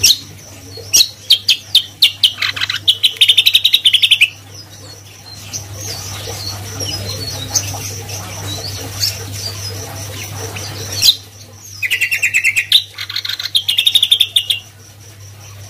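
Caged cucak kombo singing: two bursts of loud, rapid, chattering song, one about a second in and one near the end, with scattered short chirps between them.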